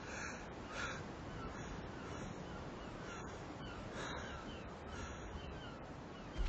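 Birds calling again and again, short falling calls, some harsh and caw-like, over a steady faint outdoor hiss.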